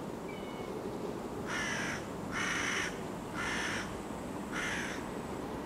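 A crow cawing four times, each caw short and harsh, about one a second, over steady low background noise.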